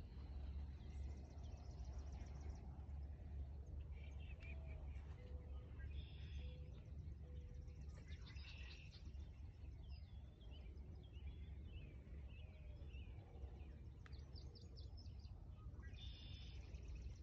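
Outdoor ambience of birds singing, short chirping phrases recurring every couple of seconds, over a steady low rumble.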